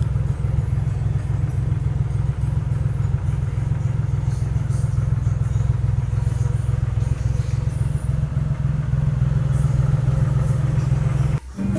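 Daihatsu Hijet 1000's three-cylinder engine idling steadily with a fast even pulse, warmed up after starting easily. The sound breaks off briefly near the end.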